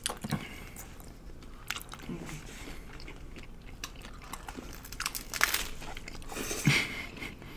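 Crisp hard taco shell being bitten and chewed close to the microphone: irregular crunches and crackles, loudest about two-thirds of the way through.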